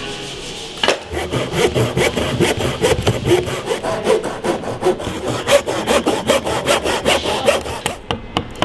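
Hand saw cutting through a piece of timber on the workbench, with quick, even back-and-forth strokes starting about a second in and running for about seven seconds. A couple of sharp knocks come near the end, a wooden mallet striking a chisel.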